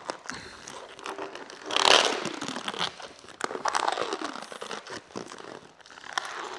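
Clear paint protection film being peeled by hand off a truck's painted bodywork, crackling and crinkling as it lifts and bunches up. Two louder peeling rasps with a falling pitch come about two seconds in and around four seconds in.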